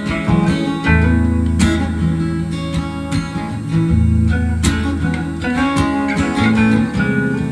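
Laid-back acoustic guitar music: plucked chords ringing over sustained low notes.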